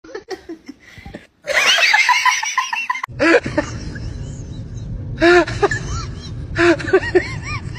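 People laughing in bursts of quick repeated syllables. A steady low rumble runs underneath from about three seconds in.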